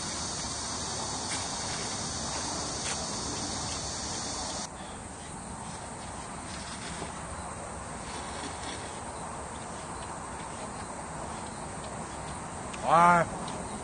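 Wood fire burning with a steady hiss and a few faint crackles; the hiss thins about a third of the way in. A short, loud vocal sound breaks in near the end.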